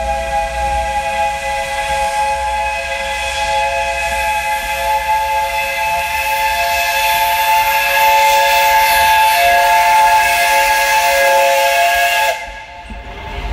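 Steam whistle of the JNR 8620-class locomotive 58654 blowing one long, loud blast, a chord of several notes with a hiss of steam. It cuts off sharply about twelve seconds in.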